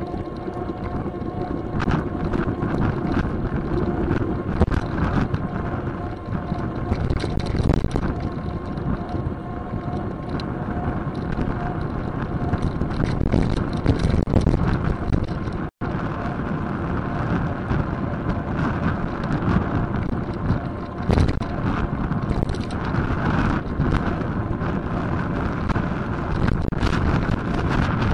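Wind buffeting the microphone of a bicycle-mounted camera while riding, over a steady rumble of tyres on the road, with frequent small knocks and rattles. The sound cuts out completely for an instant just past halfway.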